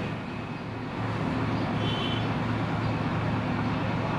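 Steady low hum over a constant background noise, with no distinct event.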